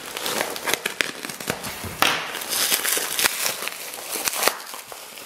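Plastic postal mailer being torn open by hand, its plastic wrapping and the bubble wrap inside crinkling and crackling with many sharp little clicks. The rustling grows louder and busier about two seconds in.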